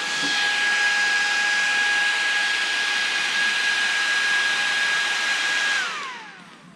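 Battery-powered fan unit for air-conditioned work clothing running at high speed, a steady whine over rushing air. Near the end it is switched off and the whine falls in pitch as the fan spins down.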